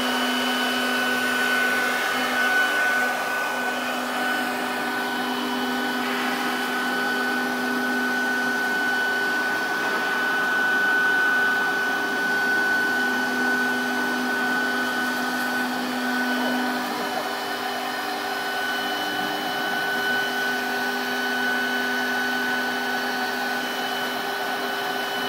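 Spindle of a 4-axis CNC router running steadily with a high whine over a rushing hiss, a lower hum fading in and out a few times.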